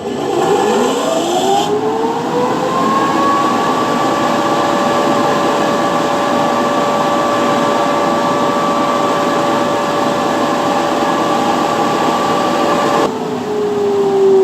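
A woodshop machine's electric motor switched on, spinning up with a rising whine over about two seconds, then running steadily with a strong rushing noise. Near the end it is switched off and the whine starts falling as it winds down.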